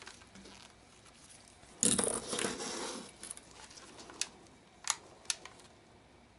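Handling noise on a workbench as solder wire is pulled off its spool: a rustling scrape about two seconds in, then three sharp clicks.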